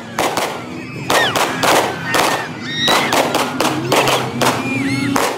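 Rapid, irregular sharp bangs, about three a second, over the steady hum of idling off-road rig engines, with scattered voices calling out.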